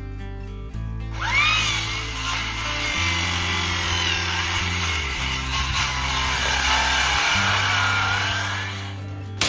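Power saw starting with a rising whine about a second in, then cutting steadily, its pitch sagging and recovering with the load, and stopping near the end, as it cuts the opening for the stove pipe through the cabin roof. Background music with a low bass line plays underneath.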